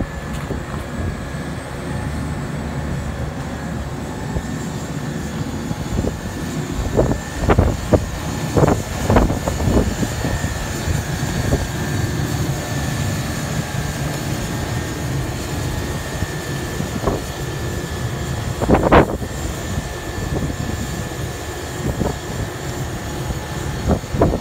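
Vögele Super 1800-2 tracked asphalt paver's diesel engine running steadily, with a constant high-pitched whine over the drone and a few brief louder bursts.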